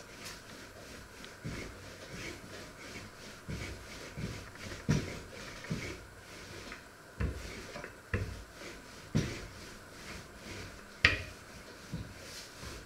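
Wooden rolling pin rolling out dough on a floured wooden worktop: soft rolling and rubbing with dull knocks about once a second as the pin is pushed and brought back. One sharper knock comes near the end.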